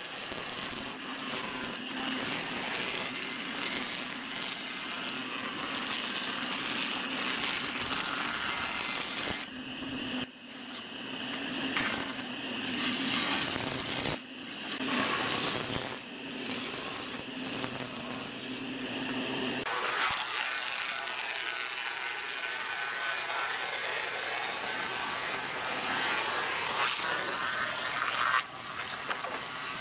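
Combination woodworking machine's planer cutterhead running and cutting wooden boards: a steady machine hum with the rasp of the knives, dipping briefly a few times. The sound changes about two-thirds of the way through as boards feed through the thicknessing planer.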